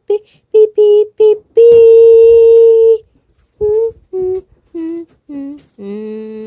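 A cartoon voice singing the letter sound "V": a few short "V!" syllables, one long held "Vvvv", then a string of notes stepping down in pitch, ending on a held note.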